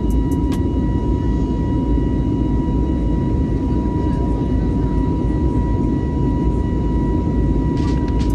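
Jet airliner cabin noise in flight: a steady, loud rush of engine and air noise with a thin high whine held at one pitch.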